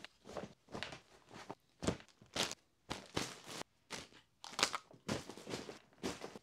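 Packing a hard-shell suitcase: plastic-bagged clothing rustling and crinkling as it is handled, with irregular short knocks as items are set inside.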